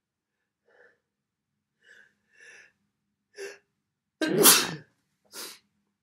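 A man's induced sneeze: a few short catching breaths that grow louder, then one loud sneeze about four seconds in, followed by a shorter burst of breath.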